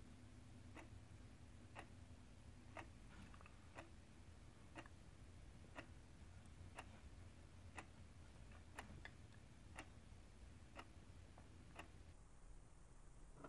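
Wall clock ticking faintly, one tick a second as the second hand steps round, over a low hiss.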